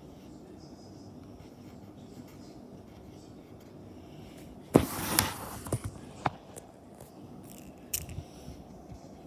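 Dry-erase marker writing on a whiteboard: faint scratchy squeaks. About five seconds in there is a sharp knock and about a second of scraping, then a few sharp clicks.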